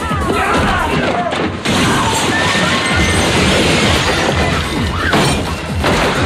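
Film fight sound effects: glass smashing and shattering, the crash starting about one and a half seconds in and running for several seconds, over loud club music with a pulsing bass beat.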